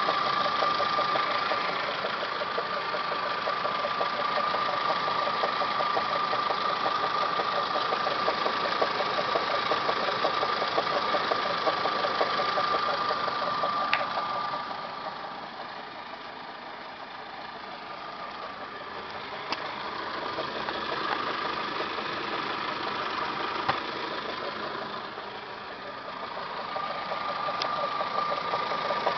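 A 1999 Toyota Camry's 5S-FE 2.2-litre four-cylinder engine running, with a steady high-pitched whine from the timing belt and water pump area on top of the engine's fast rhythmic clatter. The whine fades out about halfway through and comes back near the end.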